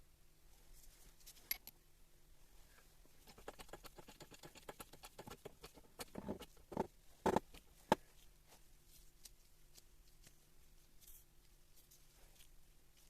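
Light clicking and tapping of small hard parts being handled, quickening into a run of taps and then a few louder knocks a little past halfway.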